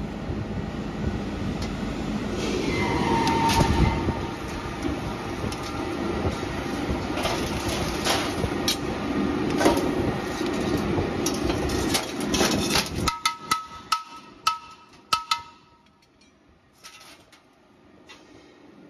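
Automatic circumferential seam welder running on a gas cylinder body turning in its fixture: a steady, rough machine noise. About thirteen seconds in it stops, and a run of sharp metal clanks follows as the welded steel body is handled.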